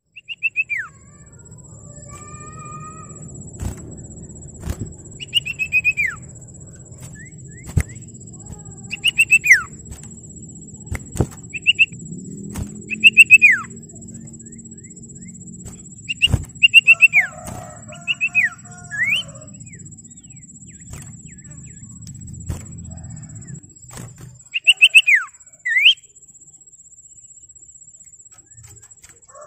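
Common iora (cipoh, called sirtu) calling: short bursts of quick whistled notes, each ending in a falling slide, repeated every few seconds. Beneath it runs a low rumble that stops about 24 seconds in, and a faint steady high whine.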